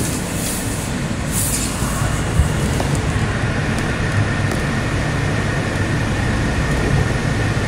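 Interior running noise of an R160 Kawasaki subway car moving: a steady low rumble of wheels on rail, with a thin steady high whine joining about three seconds in.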